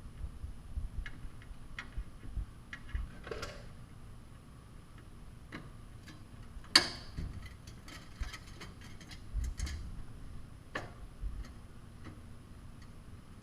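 Scattered light clicks and ticks of a Phillips screwdriver working the small screws on a headlight bezel, with a brief scrape about three seconds in and a sharp, louder metallic click about seven seconds in.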